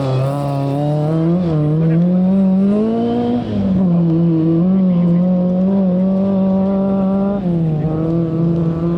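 Rally car engine pulling hard under load, its pitch climbing and then dropping sharply as it shifts up about three and a half seconds in, holding steady, and dropping again near the end.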